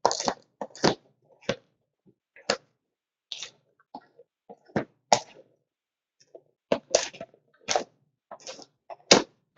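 A dozen or so irregular sharp clicks and taps with silence between them, a few of them loud.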